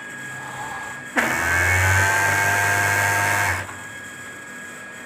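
Industrial overlock sewing machine running at speed while sewing the side seam of a T-shirt. It starts suddenly about a second in, runs steadily for about two and a half seconds, then stops.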